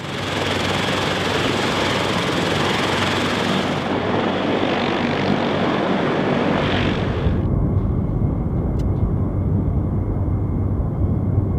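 CH-53K King Stallion heavy-lift helicopters running: a loud, steady roar of turbines and rotor blades, first on the ground and then in flight. The sound changes abruptly twice, about four and seven seconds in, ending deeper and duller.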